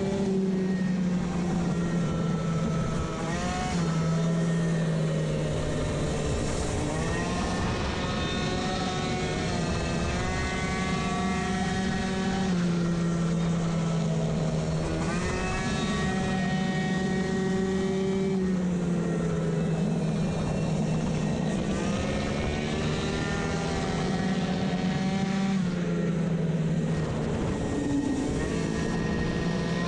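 Racing two-stroke moped engine with a variator at high revs: its note holds a high, fairly steady pitch, dips when the throttle is eased for corners and climbs back several times, over wind rush.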